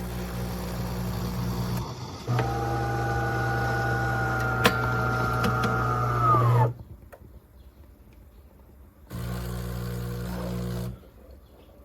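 De'Longhi Magnifica Start fully automatic espresso machine working through a cycle. Short runs of buzzing motor hum come at the start and again near the end. In between, a louder motor whines steadily for about four seconds, then winds down and stops.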